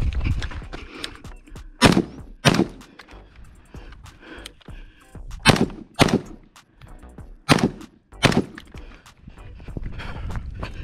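Steyr AUG rifle fired in three quick pairs of shots, the two shots of each pair a little over half a second apart and a few seconds between pairs.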